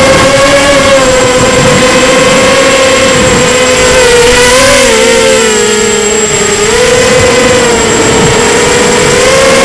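Emax Nighthawk 250 FPV quadcopter's brushless motors and propellers whining loudly in flight. The pitch holds steady, dips about five to six seconds in, then climbs back near the end.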